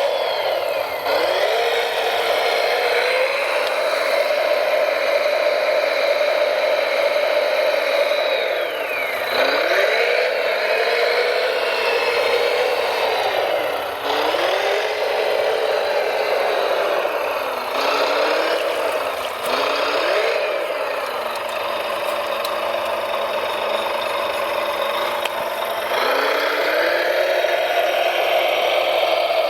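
Electric motor of a radio-controlled model machine whining steadily. Its pitch drops and climbs back several times as the throttle is eased and opened, holds lower for a few seconds past the middle, then rises again near the end.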